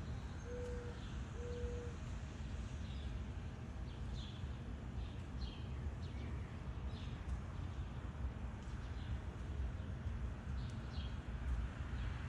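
Backyard birds chirping: many short, high, scattered chirps, with two low, steady hooting notes near the start, over a steady low background rumble.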